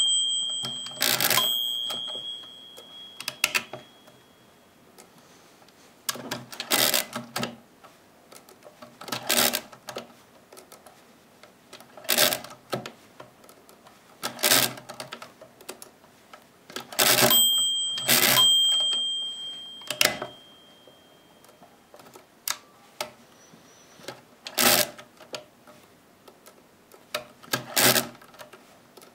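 Original Odhner pinwheel mechanical calculator being cranked through repeated subtractions: about a dozen short bursts of clattering clicks from the handle turns, spaced a second or two apart. A clear ringing note sounds twice, about a second in and about halfway through.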